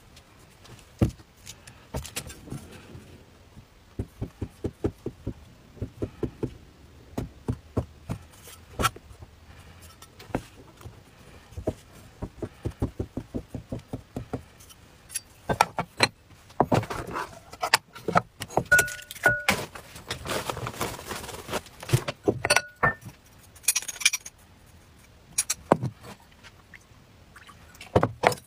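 A cleaver chopping sausage on a wooden cutting board: runs of quick knocks, about three or four a second, with scraping and clatter of the blade on the board between them.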